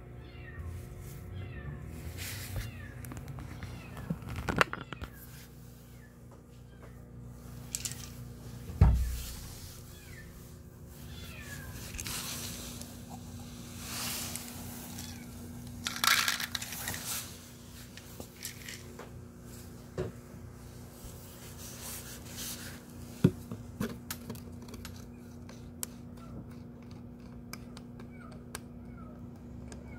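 A hungry stray kitten meowing now and then. Between the calls there is handling noise: sharp knocks, one loud thump about nine seconds in, and a short rattling clatter a little past halfway.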